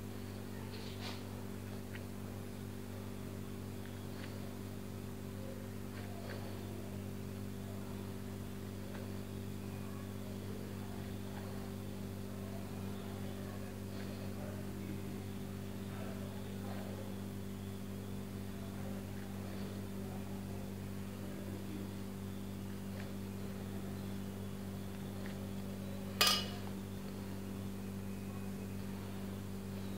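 Steady low electrical hum, with faint taps of a fluted metal cookie cutter pressing through dough onto a marble worktop, and one sharp click near the end.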